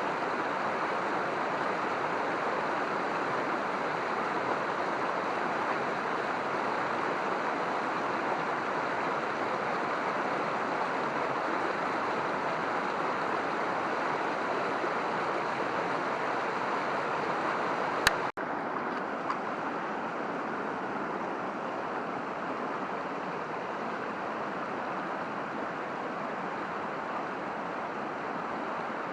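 Mountain stream water rushing steadily over rocks. A single sharp click comes about two-thirds of the way through, after which the rush is a little quieter.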